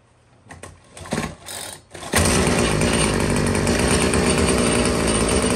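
Bolens string-trimmer engine, off its trimmer, being pull-started: a few short scraping pulls, then about two seconds in it catches and runs loud and steady.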